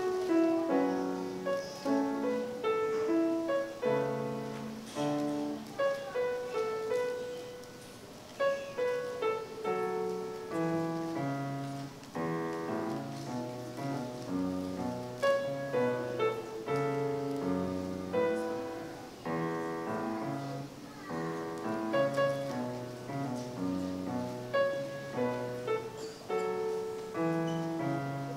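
Kawai grand piano being played: a steady run of notes and chords, growing softer for a moment about eight seconds in before picking up again.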